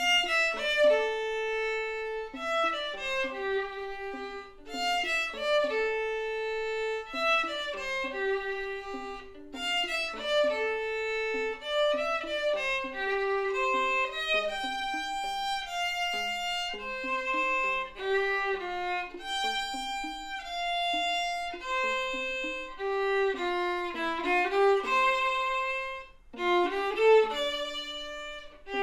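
Violin duet: bowed violins playing a medley melody, mostly held notes moving step by step, with a second part sounding alongside. The playing breaks off briefly near the end, then resumes.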